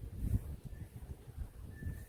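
Low, uneven rumbling of wind buffeting the microphone.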